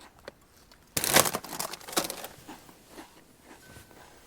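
Crinkling and crunching in two short bursts, about one second in and again at two seconds, with little sound between or after.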